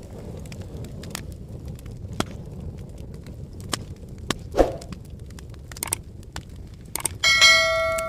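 Wood fire crackling, with a steady low rumble from the flames, irregular sharp pops, and one louder pop about halfway through. About seven seconds in, a bright ringing bell chime sounds and fades slowly: the sound effect of the subscribe-button overlay.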